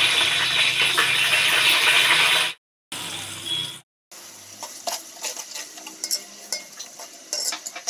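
Bay leaves and green chillies sizzling loudly in hot oil in an aluminium pot. After two abrupt cuts, chopped onions frying more quietly while a metal slotted spoon stirs them, clicking and scraping against the pot.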